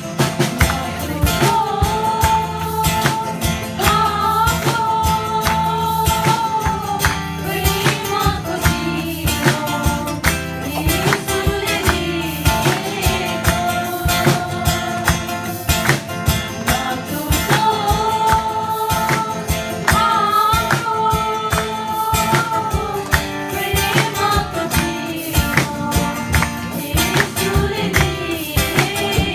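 A song: a sung melody with long held notes over guitar and a busy, steady percussive beat.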